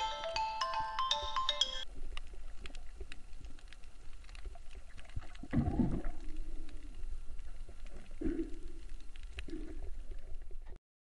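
Background music of light mallet-like notes that stops about two seconds in, then muffled underwater noise: a low rumble with scattered faint clicks and a few short, dull low sounds. The sound cuts out just before the end.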